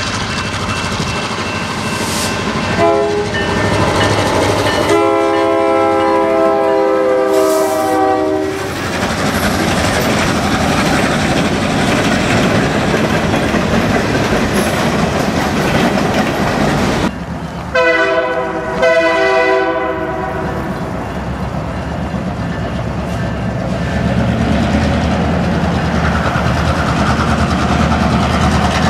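Freight diesel locomotive horns sounding over the steady rumble and clickety-clack of a passing freight train. There is a short blast a few seconds in, then a long one, and two shorter blasts a little past halfway. Near the end a locomotive's diesel engine grows louder as it comes close.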